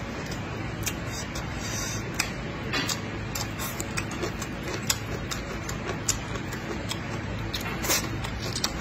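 Close-miked eating: chewing a mouthful of rice, braised pork and greens, with many small wet mouth clicks and smacks over a steady low hum. Near the end he slurps in a strand of cooked greens.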